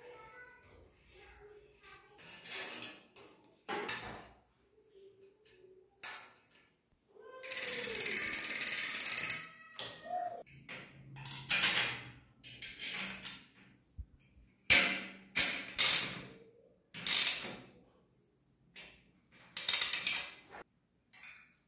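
Bicycle assembly noises: the brake cable and caliper being handled, then a socket ratchet wrench clicking in short runs while tightening the front wheel's axle nut near the end.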